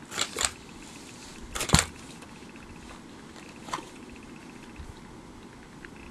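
Plastic wrapping crinkling in short bursts as it is pulled off a new tripod's head: two quick rustles near the start, the loudest about two seconds in, and a smaller one near the middle.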